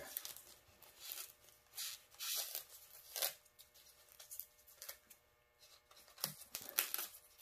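Knife cutting and scraping into brittle foam padding in short, uneven strokes, with a quieter pause midway and a quick run of strokes near the end.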